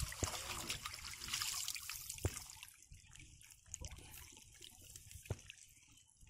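Water trickling and splashing as a woven bamboo fish trap is lifted out of shallow floodwater and drains, loudest in the first few seconds and then fading, with a couple of short knocks.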